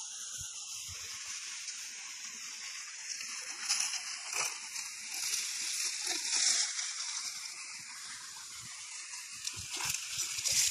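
Water sloshing and splashing, with a few louder splashes.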